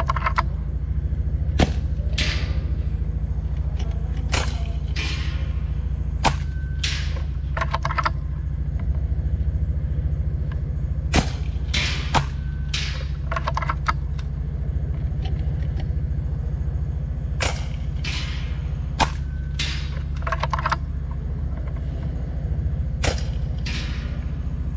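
FX Impact M3 PCP air rifle in .22 (5.5 mm) firing a series of sharp shots a few seconds apart, over a steady low rumble.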